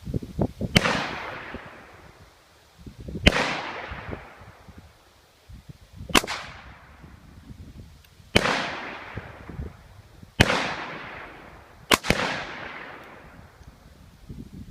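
Six black-powder shots from a Pietta 1858 New Army .44 cap-and-ball revolver, fired about two to three seconds apart. Each shot is followed by a long, fading echo.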